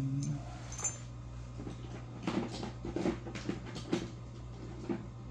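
Metal keys on a key ring being handled and tried in a padlock: a sharp click about a second in, then a run of small irregular clicks and rattles.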